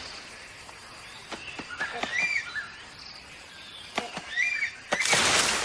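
Forest ambience with a short chirping bird call repeated about every two seconds, scattered light clicks, and a short loud burst of noise near the end.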